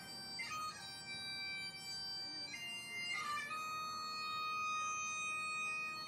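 Bagpipes playing a slow melody of long held notes, changing note a few times in the first half and then holding one note through the second half.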